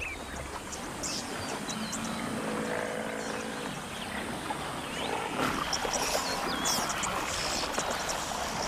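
A herd of Cape buffalo wading and drinking in a river makes an even wash of water and movement, with a few short low calls near the middle. Birds chirp over it throughout.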